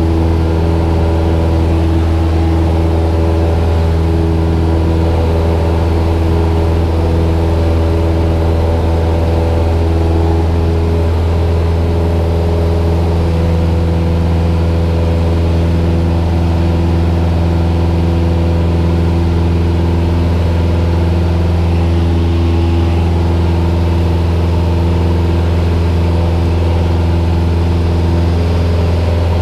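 Cessna 172M's four-cylinder piston engine and propeller running steadily in flight, heard from inside the cockpit as a constant low drone.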